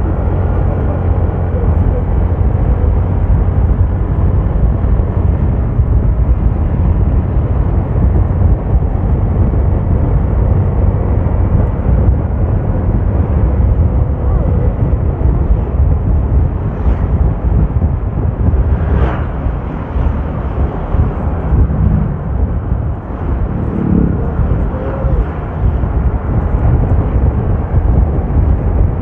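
Steady low rumble of a vehicle travelling on the road, with a brief sharp sound about two-thirds of the way through.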